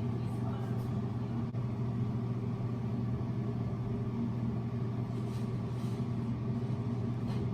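A steady low hum with several even tones, from a running motor or appliance, with a few faint soft rubbing sounds.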